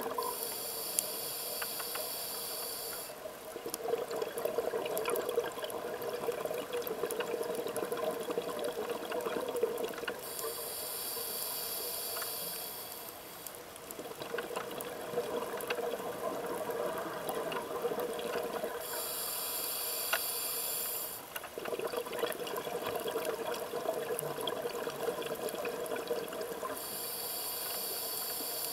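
Scuba diver breathing through a regulator: four inhalations, each a hiss of about three seconds and roughly eight seconds apart, with exhaled bubbles gurgling and rushing past between them.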